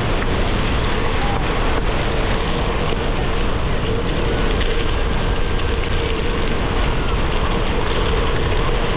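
Wind buffeting an action camera's microphone over the steady rolling noise of a gravel bike's tyres on a dirt and gravel trail.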